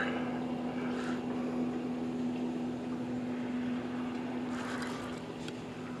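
A steady low motor hum at one pitch, with faint brief scratchy noises about a second in and again near the end.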